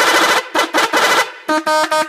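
Bus telolet horn, a multi-tone musical air horn, playing a quick tune as a run of short toots that change pitch from note to note.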